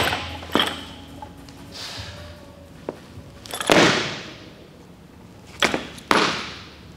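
Barbell and foot impacts on a lifting platform during a split jerk: a sharp knock shortly after the start, a loud stomp with rattle fading away in the hall a little past halfway as the lifter splits under the bar, then two sharp footsteps near the end as he brings his feet together.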